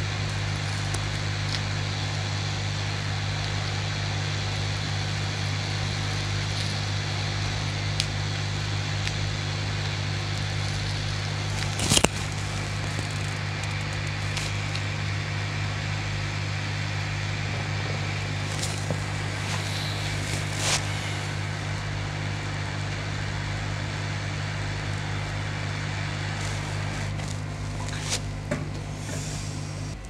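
Hot air rework station blowing steadily, a low hum under an even hiss, as it heats a shorted MOSFET on a laptop motherboard to desolder it. A sharp click about twelve seconds in.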